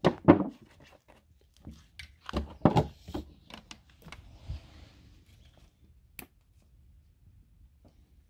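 Plastic bottles and a plastic container handled by gloved hands: crinkling, rustling and knocks, loudest at the start and again about two and a half seconds in, with a single sharp click about six seconds in.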